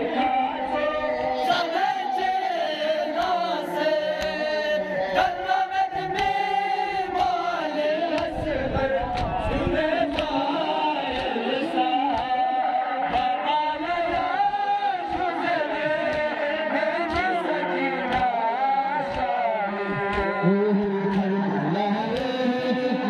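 Crowd of male mourners chanting a noha, a Shia lament, in unison, with many sharp chest-beating slaps (matam) through the chant.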